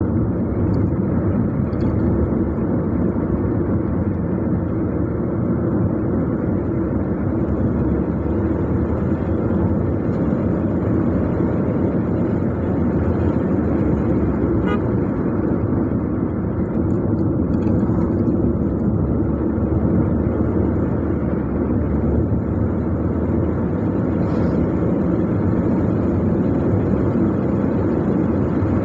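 A car driving steadily, giving a constant low engine and road noise with no change in speed.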